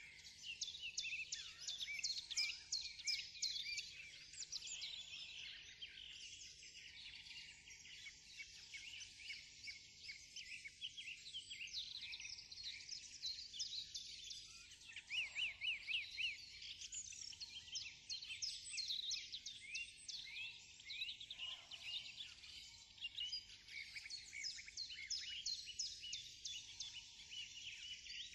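Many small birds chirping and trilling at once in a dense, continuous chorus of quick, high-pitched calls.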